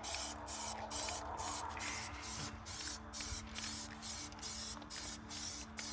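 Aerosol can of white Plasti Dip spraying in short hissing bursts, about two a second.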